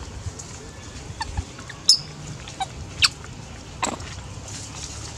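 A few short, sharp, high animal calls about a second apart, the first and loudest about two seconds in, over a faint low background.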